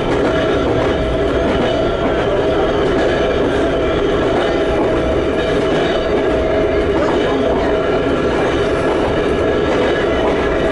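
Ohmi Railway 220 series car MoHa 226 running on the line, heard from on board. Its nose-suspended traction motors and gearing give a loud, steady whine that holds one pitch over the rumble of the running gear.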